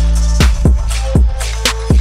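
Background music with a steady hip-hop style beat: deep kick drums and sharp snare hits over sustained bass and held synth tones.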